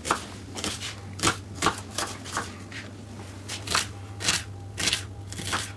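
Kitchen knife dicing an onion on a wooden cutting board: a series of sharp chopping taps at uneven spacing, pausing for about a second midway, over a faint steady low hum.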